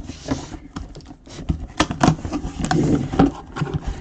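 A mini-helmet box being handled and opened by hand: a string of irregular clicks, taps and short scrapes of packaging.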